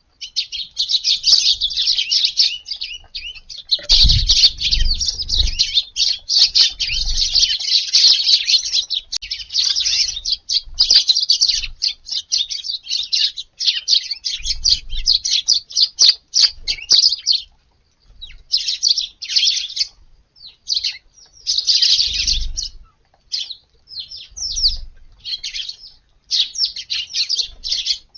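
A flock of Eurasian tree sparrows chirping in a rapid, continuous chatter that thins to scattered bursts of chirps after about seventeen seconds.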